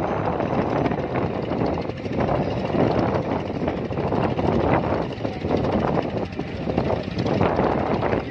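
Motorboat engines running, with wind buffeting the microphone.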